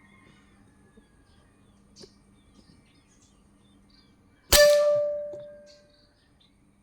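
A single shot from an FX Wildcat PCP air rifle about four and a half seconds in: a sharp crack followed by a ringing tone that fades over about a second and a half.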